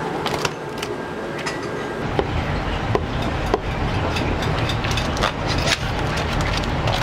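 Gas wok burner running, its low rush growing louder about two seconds in, with sharp knocks and scrapes of a metal ladle against the wok.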